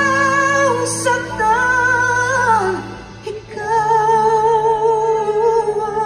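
A woman sings a slow ballad live with instrumental accompaniment. She holds long notes with vibrato, slides down at the end of a phrase about halfway through, then sustains one long note.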